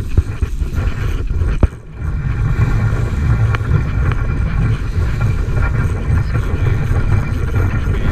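Wind buffeting the microphone: a loud, steady, low rumble, with a sharp click about a second and a half in.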